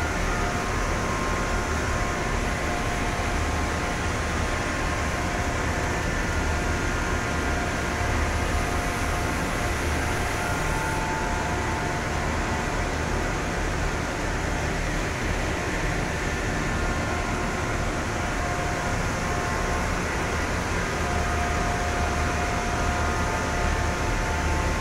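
Auto-striper jacquard circular knitting machine running steadily at speed: an even, unbroken mechanical noise with a low rumble and faint high steady tones.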